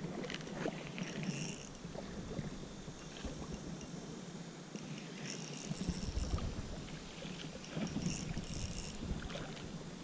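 A spinning reel being cranked to bring in a hooked smallmouth bass, over the sound of creek water.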